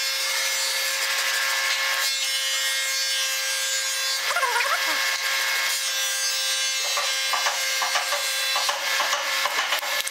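Hand saw cutting across a small pine block, a steady high rasp of the blade stroking through the wood, with a run of small ticks in the last few seconds.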